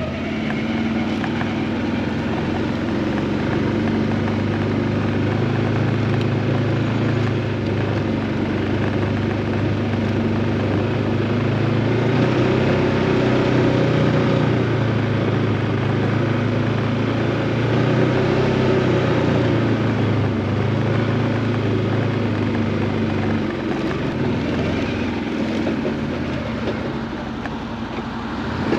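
An engine running steadily throughout; its low hum grows stronger through the middle and eases off shortly before the end.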